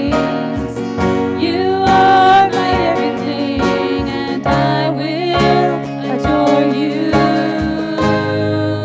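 Worship song: a voice singing over acoustic guitar with a steady beat.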